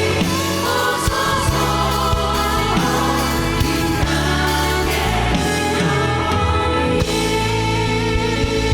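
Church praise team singing a worship song in a group, with live band accompaniment.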